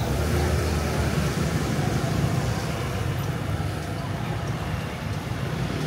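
Steady street traffic noise: motor vehicles running and passing, a continuous low rumble.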